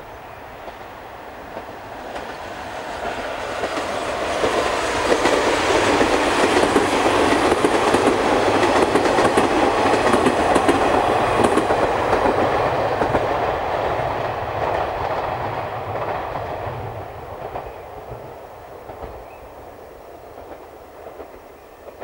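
Four-car KiHa 40-series diesel railcar train going by, growing louder over a few seconds, loudest through the middle with some sharp clacks, then fading away over the last several seconds.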